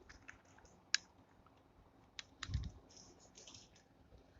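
Scattered sharp plastic clicks and light taps from handling a Wahl GroomsMan Pro trimmer, its blade head being pressed off and clicked back into place, with a soft thump about two and a half seconds in.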